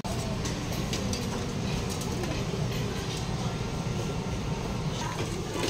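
Busy restaurant ambience: a steady low hum and rumble from the room, with a few faint light clicks and clinks scattered through it.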